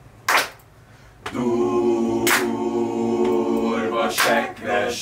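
A small group of voices singing a cappella: a chord held steady from about a second in, turning choppier near the end. Sharp single hand claps keep time about every two seconds.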